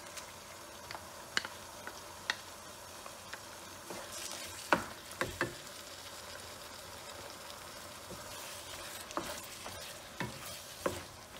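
Chicken pieces sizzling in sesame oil in a frying pan while a wooden spatula stirs a ground spice paste through them. Scattered clicks and knocks of the spatula on the pan sound over the steady sizzle, the loudest about halfway through.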